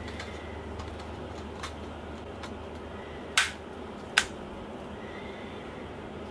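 Two sharp plastic clicks about a second apart, from a MacBook Pro's white power adapter being handled, over a steady low hum.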